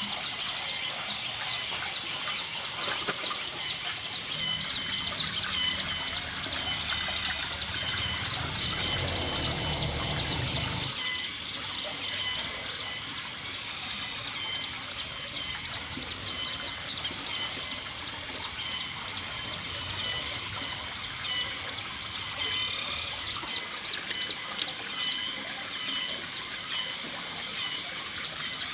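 Rapid high bird chirping, repeated throughout. A low rumble under it stops suddenly about eleven seconds in.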